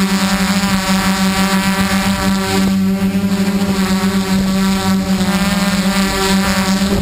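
Xaircraft X650 quadcopter's motors and propellers running, a steady droning hum that wavers quickly in loudness.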